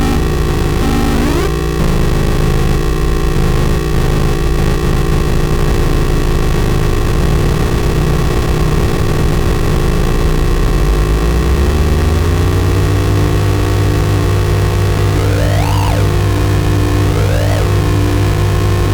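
Electronic noise music from DIY synthesizer instruments: a loud, dense drone of steady tones and noise. A low hum swells in about two-thirds of the way through, and near the end two quick pitch sweeps rise and fall.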